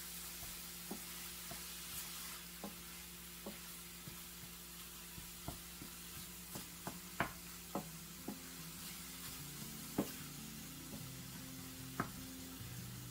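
Ground meat and onion frying in a stainless steel pan with a faint steady sizzle, while a wooden spatula stirs it, clicking and tapping against the pan now and then, the taps sharper in the second half.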